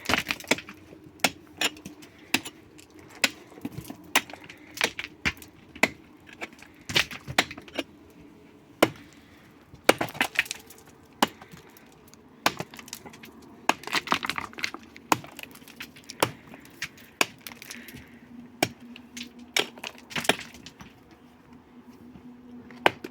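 Irregular sharp knocks and clinks of hand work with hard tools, coming singly and in quick clusters, over a faint steady hum.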